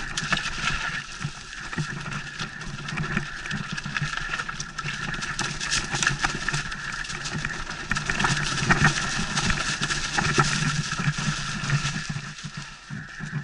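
Mountain bike ridden fast downhill over a leaf-and-rock forest trail: continuous tyre noise over leaves and dirt, with many short knocks and rattles from the bike hitting roots and stones.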